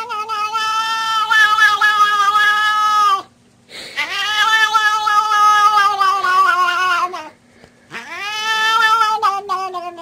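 A cat yowling in three long, drawn-out calls with short breaks between them, each held at a steady pitch and dipping at its end.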